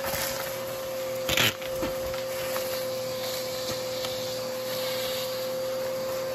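Vacuum cleaner running with a steady whine, its crevice tool sucking up small debris. About a second and a half in there is one loud, brief crunch as a clump of debris goes up the tool, with a few faint ticks of small bits around it.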